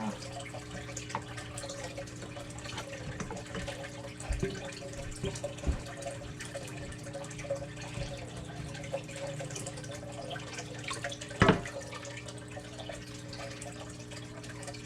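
Aquarium water trickling and dripping over a steady hum, with a few soft thumps and one sharp knock about eleven and a half seconds in.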